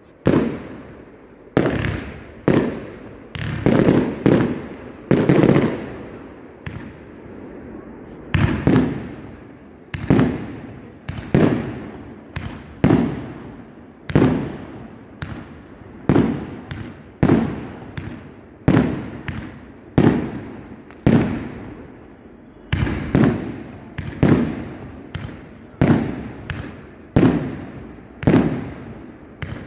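Fireworks going off in a steady series of loud bangs, about one every second and a half, each trailing off in a rolling echo, with a brief lull a quarter of the way in.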